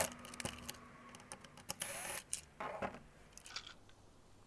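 Light clicks and rattles of the plastic steering wheel trim and its small screws being handled as a ball-end Torx driver backs out the last screws and the lower trim comes apart from the upper trim, with a brief scrape about two seconds in.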